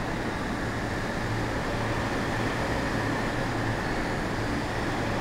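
E233-series electric train standing at the platform, its onboard equipment giving a steady low hum over even background noise.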